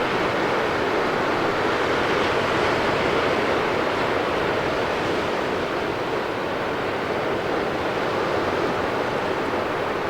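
Ocean surf: a steady rushing wash of waves, with no single crash standing out.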